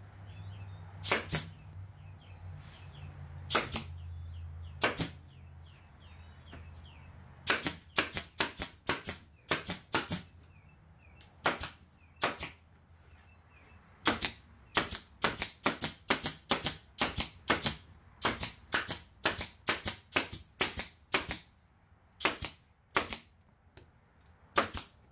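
Pneumatic staple gun firing staples through waterproof panel board into plywood. The sharp snaps come singly at first, then in quick irregular runs, several a second. A low steady hum underlies the first seven seconds or so.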